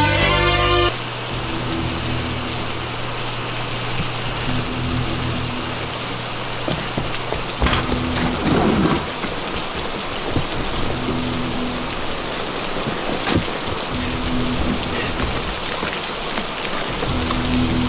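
Heavy rain falling steadily, after a guitar music cue cuts off about a second in. Quiet low music notes come back every few seconds underneath the rain.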